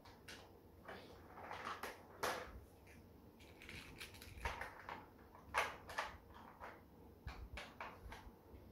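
Toy vehicles being handled and set into a plastic toy dump truck's bed, clattering against each other and the truck. A string of irregular light knocks and scrapes, the loudest about five and a half seconds in.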